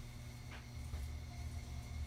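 Steady low hum inside a Sapporo streetcar, with a faint thin high tone and a soft click about half a second in.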